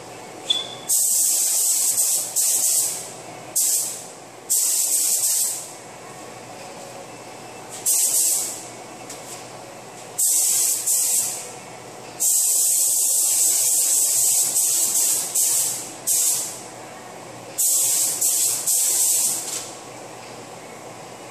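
Compressed-air gravity-feed paint spray gun hissing in about eight bursts as the trigger is pulled and released, spraying paint. Most bursts last a second or less; one near the middle runs about three seconds.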